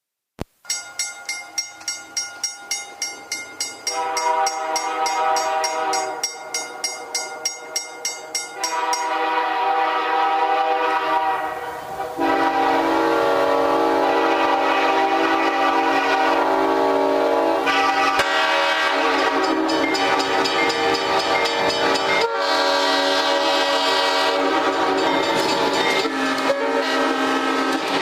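Train horns layered on top of one another. A multi-note horn chord sounds over a rhythmic clatter of about three beats a second, then more horns join, and from about ten seconds in they hold as one loud, continuous, dense chord.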